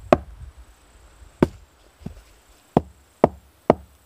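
Ground stone axe head, used as a hand axe, chopping a green branch against a wooden board: six sharp blows at uneven intervals, one of them lighter about two seconds in. The blunt, rolled stone edge cuts and crushes the green wood at the same time.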